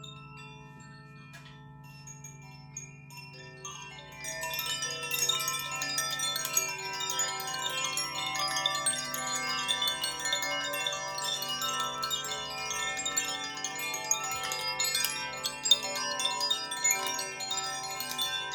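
Chimes ringing in a dense, continuous shimmer of many overlapping bright tones, starting about four seconds in after a few sparse, long-ringing notes, over a low steady hum.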